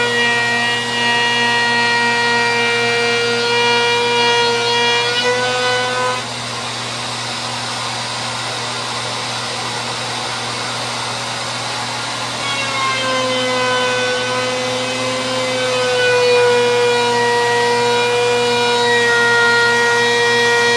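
Handheld wood router running at high speed with a steady high whine, trimming the edges of drawer fronts flush into a straight line. About six seconds in, the whine drops out and a duller rushing noise takes over for several seconds; then the whine returns and holds steady.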